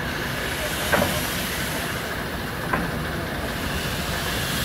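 DB class 23 steam locomotive 23 042 rolling slowly past at close range, with a steady hiss of steam. Two short sharp knocks come about one second in and again near three seconds.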